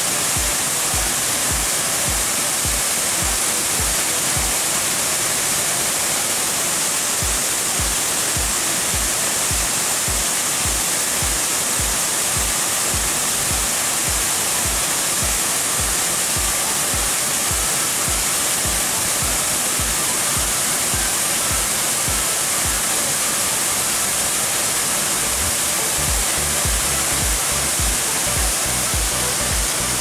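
Waterfall rushing steadily as white water cascades down steep rock, a dense continuous hiss. Background music with a steady low beat runs underneath and grows fuller in the last few seconds.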